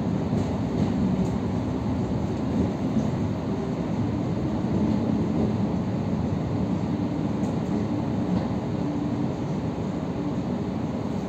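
Suburban electric train running slowly alongside a platform, heard from inside the carriage: a steady low rumble with a faint steady hum.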